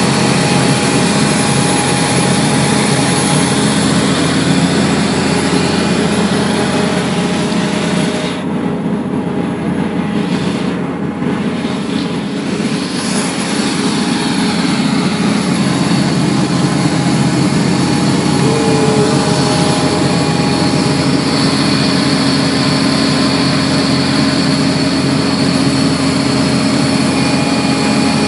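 Atlas Copco portable air compressor running steadily under load as it feeds compressed air down the hose into the well. Its high hiss thins out briefly about eight seconds in.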